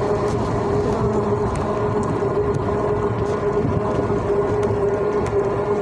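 Small motor vehicle running steadily along a paved road: a constant motor whine over road rumble, with a few light rattling clicks.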